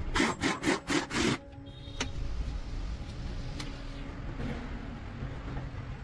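Five quick, loud scraping strokes, about four a second, then a quieter steady rumble.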